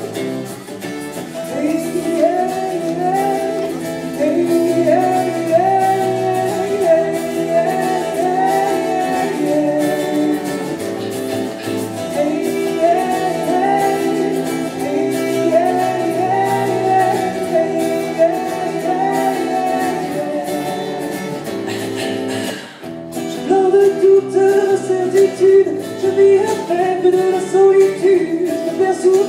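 A woman singing live while strumming an acoustic guitar, heard from the audience in a concert hall. Near three quarters through the song dips briefly and then comes back louder.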